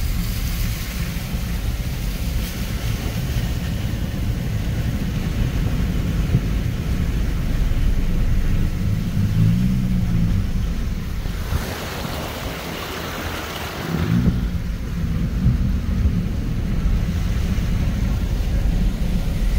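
Car driving through a flooded road, heard from inside the cabin: a steady low rumble of engine and tyres in the floodwater, with wind noise on the phone's microphone. About halfway through, the rumble drops away for a couple of seconds under a louder hiss.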